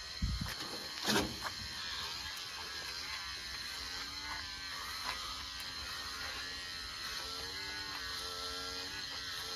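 Electric pet hair clippers running steadily as they shave a dog's coat, with a couple of sharp knocks in the first second or so and a wavering hum near the end.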